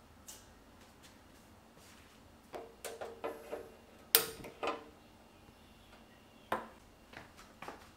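A string of sharp clicks and light metallic knocks from a gas stove burner knob being turned and a hand-held spark gas lighter being clicked at the burner to light it. The loudest click comes about four seconds in, with a brief ring after it.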